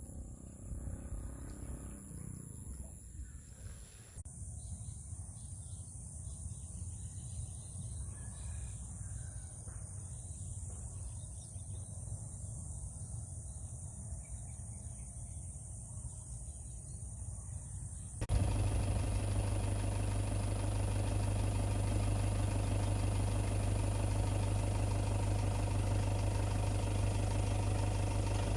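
A low rumble with a steady high thin hum. About eighteen seconds in, it gives way abruptly to a louder engine running steadily at an even speed.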